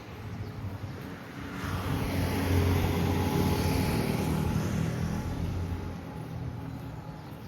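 A car driving past: engine and tyre noise swell from about a second and a half in, peak, and fade away by about six seconds in.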